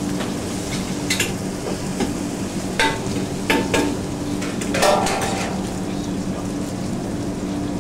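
Working kitchen background: a steady low hum with scattered clicks and knocks of utensils and pans, and a ringing metal clink about five seconds in.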